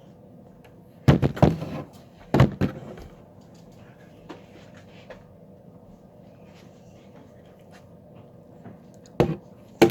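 Several sharp knocks and thumps of objects being handled: a quick cluster about a second in, another about two and a half seconds in, and two more near the end, with low background noise between.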